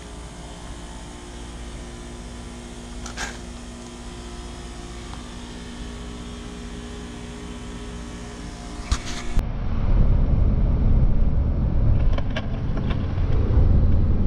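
Steady low hum with a couple of faint clicks. About nine seconds in it cuts abruptly to the louder, even low rumble of a car driving, heard from inside the cabin.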